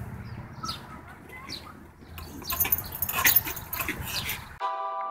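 A dog jumping and hanging by its teeth from a rope toy hung from above: scuffling and rustling with short high squeaks and a few knocks, busiest in the second half. Electronic music cuts in abruptly about half a second before the end.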